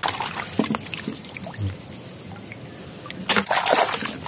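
Shallow water sloshing and splashing as shells are picked from the mud by hand, with a cluster of louder splashes a little over three seconds in.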